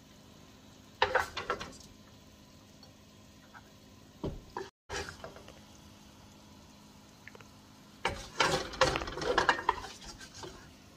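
Wooden spatula scraping and knocking in a wok as stir-fried chicken is scooped out and served onto a plate: a short clatter about a second in, another around four seconds, and a longer, busier run of scraping from about eight seconds.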